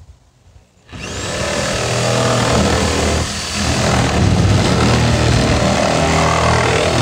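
Corded electric power saw starting up about a second in with a rising whine, then running steadily as it cuts into the plastic top of an IBC chemical tote, the sound dipping briefly partway through.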